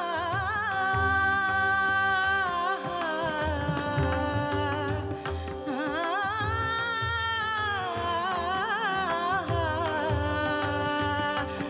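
Marathi devotional song (abhang/bhajan) sung with ornamented, wavering held notes over instrumental accompaniment with a steady drone and regular low drum strokes.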